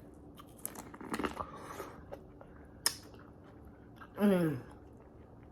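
Close-up biting and chewing of crunchy elote (Mexican street corn), with small crisp crunches and mouth sounds and a sharp click near three seconds in. About four seconds in there is a short falling hum from the eater.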